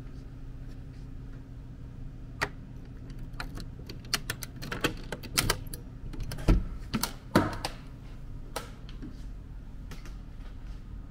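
A metal door's lever handle and latch clicking as the door is unlatched and swung open: a scatter of sharp clicks and knocks from about two seconds in, loudest a little past the middle, over a steady low hum.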